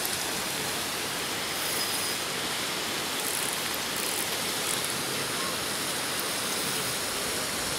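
A steady, even rushing noise with no breaks and no clear pitch.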